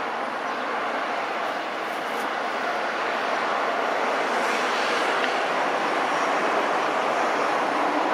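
Jet engine noise from an Airbus A330-200 airliner: a steady rushing roar that slowly grows a little louder.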